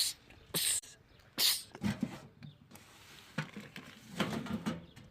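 A man sneezing in rapid succession: three sharp sneezes within the first second and a half, followed by quieter sounds.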